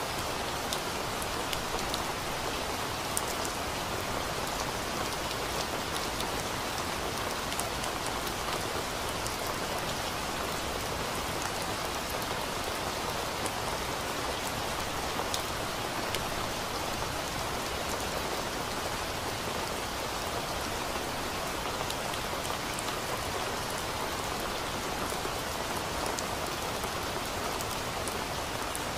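Steady, even rain with scattered sharp drop ticks over the hiss.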